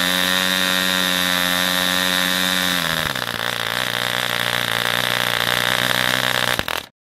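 Small two-stroke model airplane engine running on a test stand with a steady high-pitched note. About three seconds in its pitch drops as the engine slows to a lower speed, and the sound cuts off abruptly near the end.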